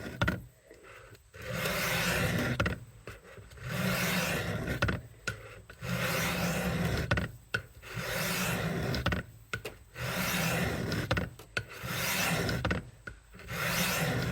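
Kitchen knife blade drawn along the wet coarse stone of a guided sharpening system, rasping in even strokes about every two seconds, about seven passes in all.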